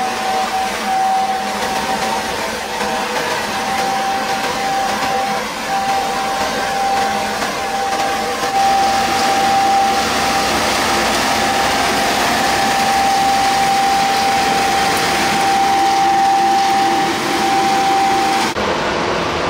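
Isuzu Giga road sweeper truck running its sweeping gear: a steady rushing mechanical noise of the machinery, spinning side broom and water spray, with a steady whine over it that cuts off near the end.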